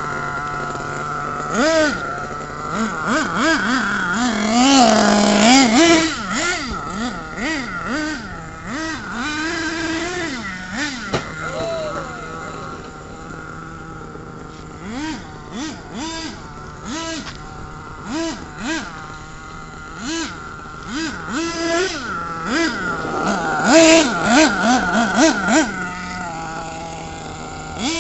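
Radio-controlled car's motor revving up and down in short bursts of throttle, many quick rises and falls in pitch over a steady high whine. The revving is busiest in the first few seconds and again in the last several.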